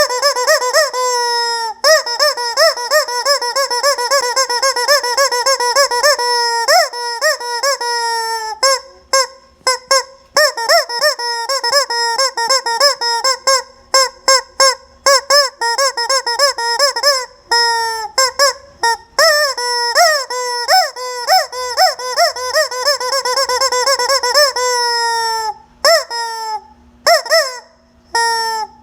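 Rubber squeaky chicken toy squeezed over and over, giving loud, honking squawks in quick succession with brief pauses between squeezes.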